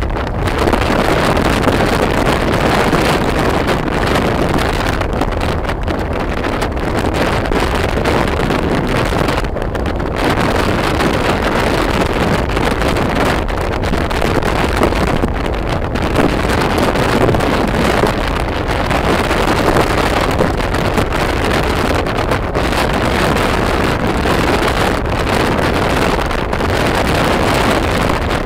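Wind rushing over the microphone of a phone carried on a motorbike riding at speed, a loud steady roar of noise with the bike's running noise mixed in. It fluctuates a little but never lets up.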